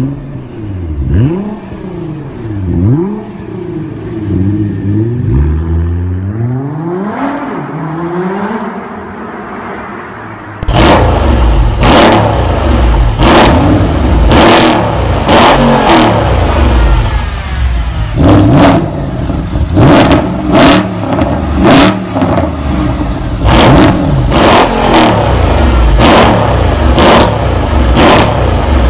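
Mercedes-AMG E63 biturbo V8 with a Stage 3 flap-controlled exhaust, revved again and again at standstill in quick rising and falling blips. About ten seconds in it turns abruptly louder and fuller, with many sharp cracks between the blips.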